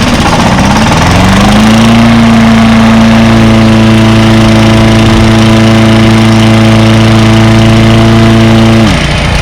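Honda walk-behind lawn mower engine running as the blade is engaged: the engine note dips under the load, climbs back within a second or two and runs steady, then drops sharply near the end as the blade is released or the throttle eased.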